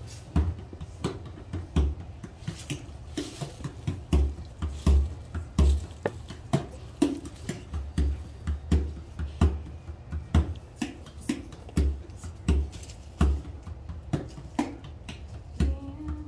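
Bodhrán (Celtic frame drum) played solo in a steady driving rhythm, deep low strokes on the skin mixed with lighter, sharper taps.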